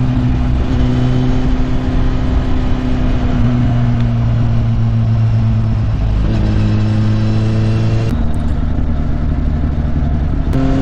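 Kawasaki Z800 inline-four motorcycle engine running on the move under steady throttle, with wind rush. Its pitch shifts a few times as speed and gear change, and it climbs near the end as the rider accelerates.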